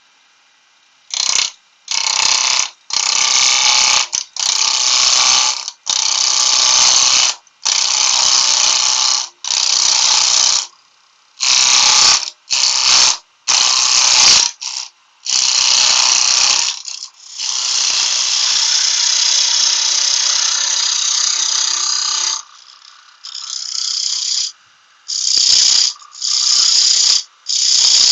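Power tool cutting wood in a string of short runs, each starting and stopping sharply, with one longer run of about five seconds just past the middle.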